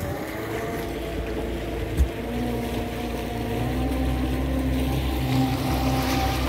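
Motorboat engine running steadily, with a single thump about two seconds in. After the thump a lower, slightly louder engine note comes in as the boat gets under way.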